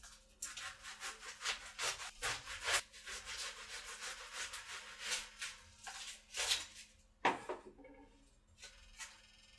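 Papery outer skin of a red onion crackling and rustling as fingers peel it off against a plastic cutting board, in quick irregular scratchy bursts. A single sharper knock comes about seven seconds in, after which the crackling dies down.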